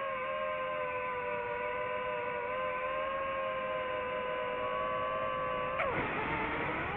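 Multirotor drone's electric motors and propellers whining steadily. About six seconds in a sudden whoosh breaks in and the whine drops in pitch, then climbs back as the motors speed up again.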